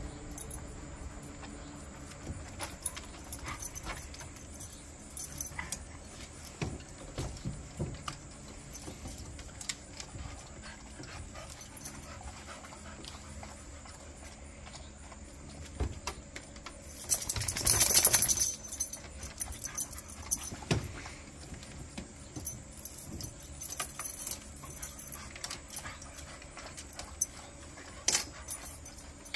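A dog shifting about on a folding lounge chair: scattered light clicks and jingles from its harness hardware and the chair frame, with one louder rustling noise lasting over a second a little past the middle.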